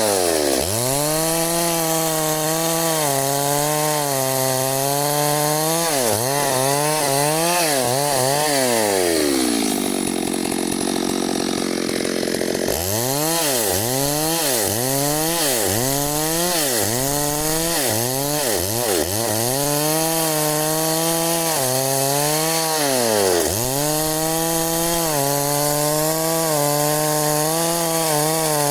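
Two-stroke chainsaw cutting wood, its engine note dipping and recovering every second or two as the chain bites into the wood. About nine seconds in the engine drops right down for around three seconds, then picks up again and goes on cutting.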